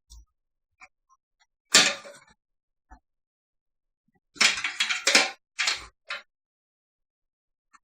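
Hard computer parts and the PC case being handled: one sharp knock, then a quick run of four or five clattering knocks.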